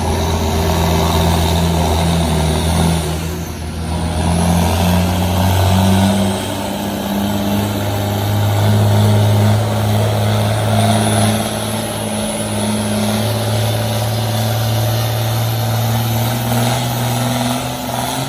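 Farm tractor engine under full load, pulling a weight-transfer sled down the track. The engine pitch climbs in steps over the first few seconds, then holds high and steady for the rest of the pull.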